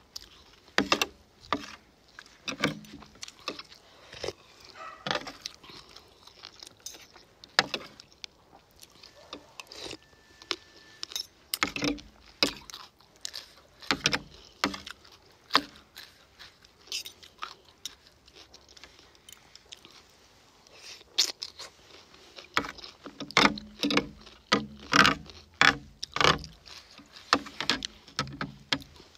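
Metal fork and spoon clinking and scraping against a serving tray while stirring and scooping salad, as irregular sharp clicks that come thickest near the end, with crunchy chewing in between.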